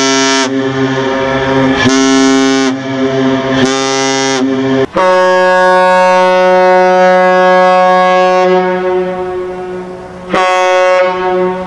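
Cargo ships' air horns. A deeper horn sounds in a string of short blasts of about a second each. About five seconds in, a higher-pitched horn gives one long blast of about five seconds, then a short one after a brief pause.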